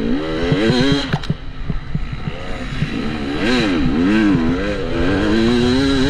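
KTM 300 EXC's single-cylinder two-stroke engine under riding throttle. It revs up and drops about a second in, gives two quick rise-and-fall blips a few seconds in, then holds a steadier note.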